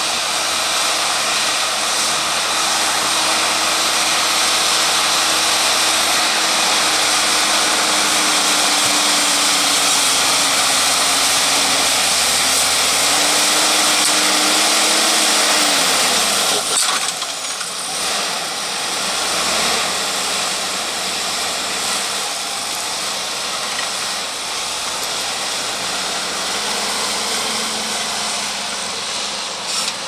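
Fendt 936 Vario and Fendt 714 Vario tractors working together under heavy load to pull a deep plough: a loud, steady diesel drone with a strong high turbo and fan hiss. The engine note sags and recovers, falls away about halfway through, and a slightly quieter, closer engine sound follows.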